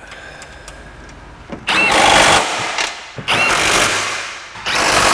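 Power tool running down the upper strut-mount nuts on the strut tower in three short rattling bursts, each starting with a brief whine, as the new front strut is fastened in.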